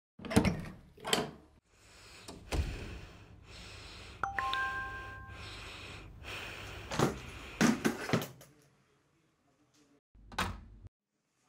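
A series of soft knocks and thumps in a small room, with a short electronic chime of a few steady tones about four seconds in.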